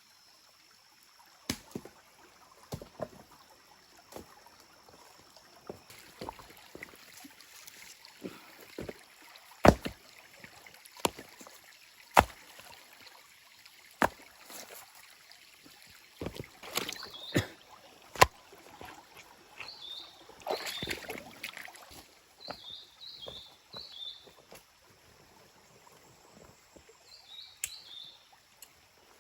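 Scattered knocks and clicks of handled objects, one every second or two, the loudest about ten seconds in. From about halfway, a bird chirps in short repeated bursts.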